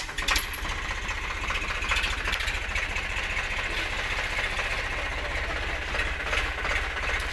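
Diesel tractor engine running steadily with a fast, even low beat, its revs holding level.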